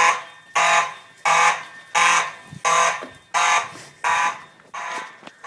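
Fire alarm horn sounding in evenly repeated buzzy blasts, about one every 0.7 seconds, getting fainter near the end.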